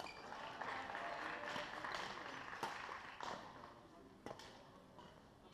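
Badminton rackets striking a shuttlecock in a large echoing sports hall: a few sharp cracks about a second apart, over a noisy wash of shoe movement and distant voices.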